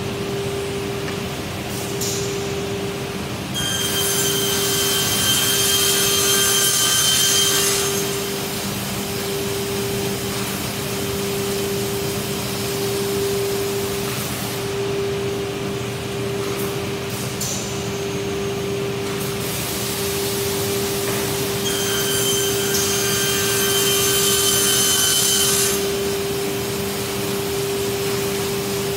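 Griggio two-blade sliding table panel saw running with a steady hum alongside its dust extractor. Twice it cuts through a laminated board, each cut a loud hiss with a high whine lasting about four seconds, the first a few seconds in and the second about two-thirds of the way through.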